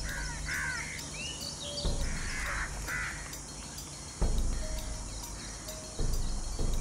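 Birds calling: a run of short, arching calls in the first three seconds, over a steady low background. Dull low thuds come in three times, about two seconds apart.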